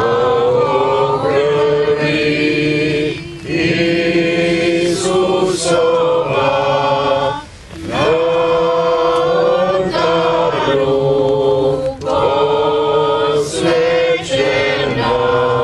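Congregation singing a hymn together, in phrases with a short breath about every four seconds.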